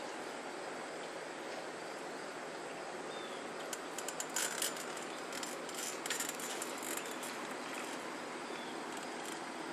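Steady outdoor background hiss with two short runs of dry clicking, about four and six seconds in.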